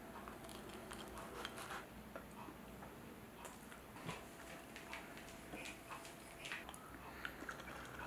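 Faint, scattered light clicks and taps of a knife and fork cutting toast on a plate and of tableware being handled. The toast has cooled, so the cutting makes no crunch.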